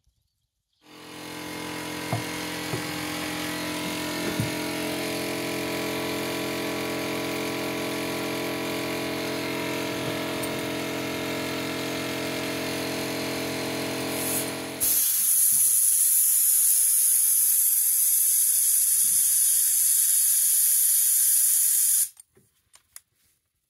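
A power tool's motor starts up and runs at a steady hum. About fifteen seconds in it changes abruptly to a louder rushing hiss, then stops suddenly.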